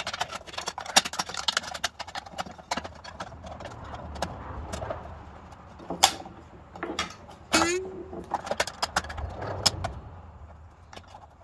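Steel bandsaw blade being worked by hand onto the wheels and guides of a Porter-Cable 7724 PortaBand: irregular clicks, taps and knocks of the blade and hands against the metal wheels and frame, the loudest about six and seven and a half seconds in.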